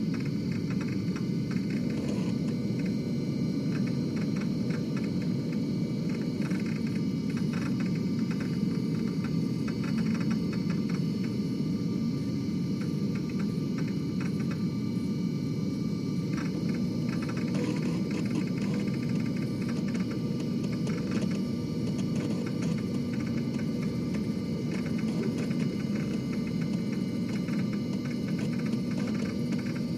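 Floppy disk drive running: a steady low hum with a few thin steady tones above it and faint, irregular clicks.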